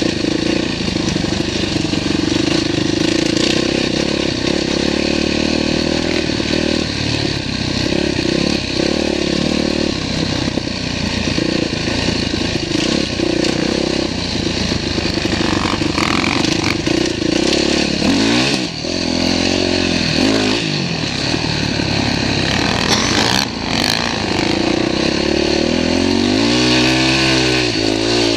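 Dirt bike engine running under throttle from the rider's own bike, its note dropping and picking up again with shifts about two-thirds of the way through, with a brief clack, then revving up and down on a steep hill climb near the end.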